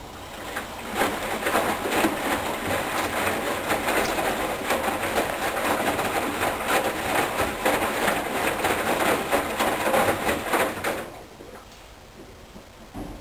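Water sloshing and splashing inside a Hoover Dynamic Wash front-loading washing machine as the drum tumbles the load during the final rinse with fabric softener, stopping about eleven seconds in when the drum pauses.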